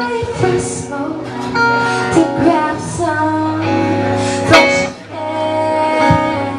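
Live band music: a woman singing lead over electric guitar, drums and keyboard. A sharp percussive hit stands out about four and a half seconds in.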